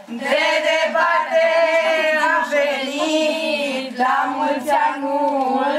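A group of young women singing a traditional Romanian Christmas carol together, loudly and in long held notes.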